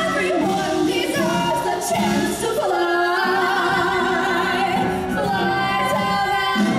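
Two female voices singing a duet through handheld microphones, holding long sustained notes with vibrato over backing music.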